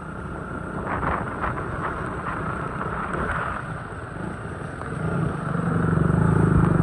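Motorcycle engine running on the move, a steady low drone that grows markedly louder about five seconds in as the bike pulls harder.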